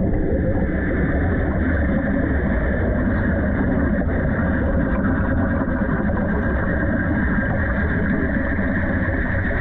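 Underwater wet stick welding arc heard from beneath the surface: a steady, dense, muffled rumbling noise with the arc's gas bubbling.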